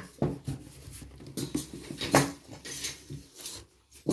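Steel spanners, open-end and ring, clinking and clattering against each other as a handful of them is handled and sorted, with several sharp metallic clinks.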